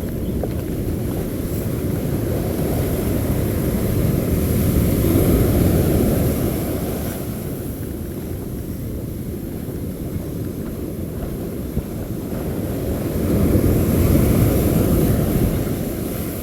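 Low rumble of wind buffeting the microphone, mixed with beach surf, swelling twice as waves and gusts come through.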